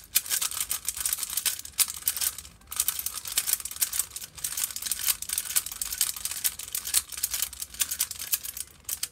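Rubik's cube being turned rapidly by hand: a fast, continuous clatter of plastic layers clicking into place, with a short lull about two and a half seconds in.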